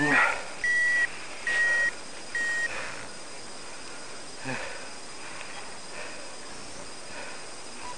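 Electronic beeping from a paraglider's harness-mounted flight instrument: a short rising chirp, then three even beeps of one pitch, each just under half a second, about a second apart.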